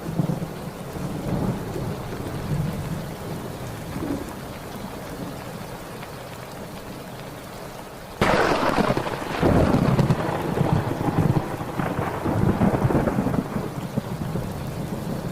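Steady heavy rain with low thunder rumbling underneath. About eight seconds in, a sudden loud thunderclap breaks and rolls on in several surges for about six seconds.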